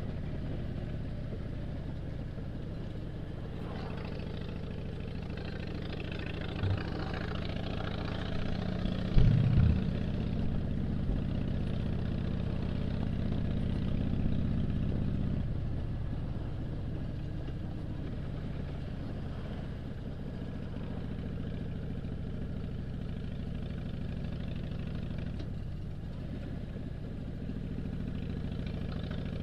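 A 2007 Harley-Davidson Dyna Street Bob's air-cooled Twin Cam 96 V-twin running steadily at low road speed, heard from the rider's seat. There is a brief thump about nine seconds in, and the engine eases off a little about fifteen seconds in.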